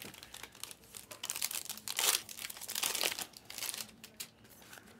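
A trading-card pack's plastic wrapper being crinkled and torn open, in several noisy bursts over about two and a half seconds, loudest about two seconds in, with small clicks of card handling around them.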